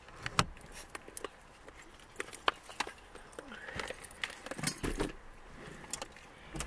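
Handling noise in a car cabin: scattered soft clicks and rustling as the camera is set in place and a fuzzy jacket brushes against it.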